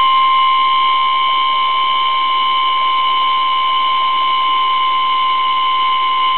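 Electric motor standing in for a car power-window motor, running with a steady, unchanging high whine while the timed roll-up circuit holds it on.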